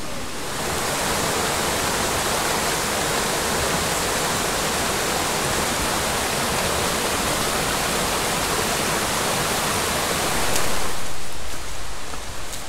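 Small waterfall on a mountain creek, water rushing and splashing over rock in a steady roar. Near the end the rushing gives way to rustling footsteps in dry leaf litter.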